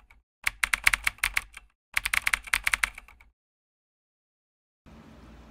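Typing sound effect: rapid computer-keyboard key clicks in two quick bursts of about a second and a half each, then a pause. A faint steady hiss comes in near the end.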